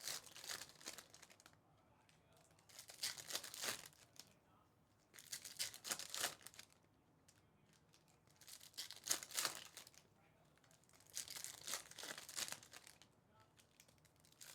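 Foil wrappers of trading-card packs being torn open one after another, a crinkly rip about every three seconds.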